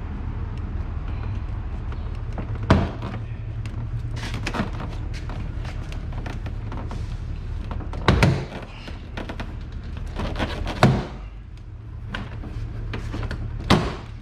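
Plastic door-panel retaining clips popping loose as the trim panel is pried off a car door: four sharp snaps and thumps spaced a few seconds apart, with smaller knocks between, over a steady low hum.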